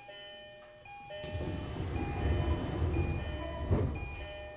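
Station departure melody of short chiming notes playing from the platform speakers, heard from inside a stopped Tokyo Metro 10000 series car. From about a second in, a louder low rumbling noise swells for about three seconds, with a sharp knock near the end of it.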